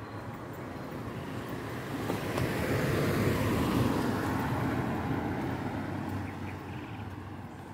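A car passing by on the road, its tyre and engine noise swelling to a peak a few seconds in and then fading away.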